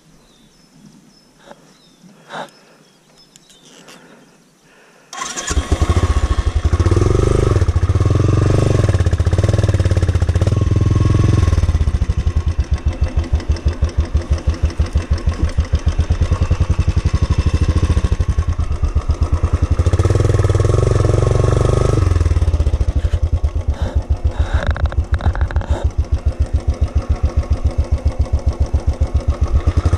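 Royal Enfield Bullet 350's single-cylinder engine starting about five seconds in, then running with a fast, even thump, revved up a few times.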